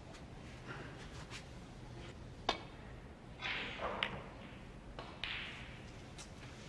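Snooker balls clicking on the table: a sharp click about 2.5 s in, then more clicks about 4 and 5 s in as the cue ball strikes a red and comes back up the table. Two soft rushing swells come in around the later clicks.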